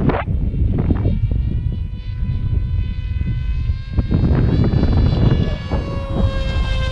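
Electric motor and propeller of a Rebel S14 RC flying wing whining steadily in flight overhead, with gusty wind rumbling on the microphone.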